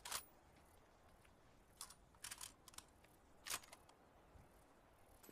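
A short-barrelled Mosin-Nagant bolt-action rifle's action being handled: a few sharp metallic clicks and clacks, one at the start, a quick cluster about two seconds in and another about a second and a half later.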